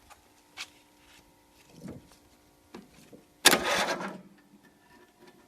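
Brief burst from the starter of an 18 hp Briggs & Stratton lawn mower engine, under a second long, about three and a half seconds in, after a few faint clicks. The engine does not catch, which the owner puts down to a faulty starter motor.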